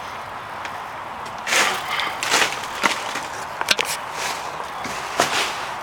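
Irregular crunches and scrapes on loose rubble and rust debris, starting about a second and a half in, with a few sharp clicks in the middle.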